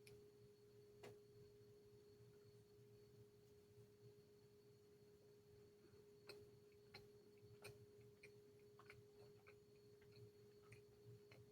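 Near silence: a faint steady electrical-sounding hum tone, with a few faint scattered clicks and ticks from about the middle on.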